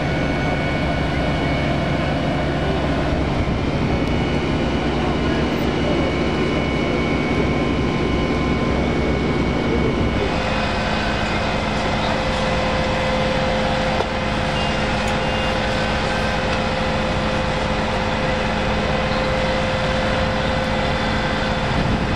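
Fire engines' diesel engines running steadily at high revs to drive their water pumps: a continuous loud drone with a steady hum. The pitch and mix change abruptly about ten seconds in.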